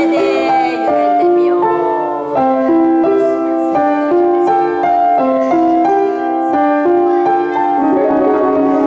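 Piano playing a bouncy, repeating melody in short phrases, opening with a quick upward run of high notes: accompaniment for a eurhythmics quick-reaction game, cueing the children's movements.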